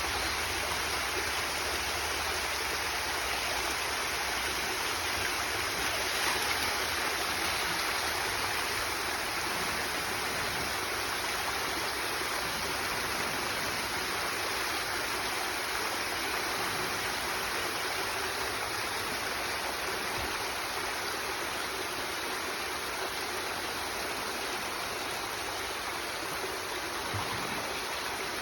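Water rushing down a small waterfall: a steady, even rush of flowing water.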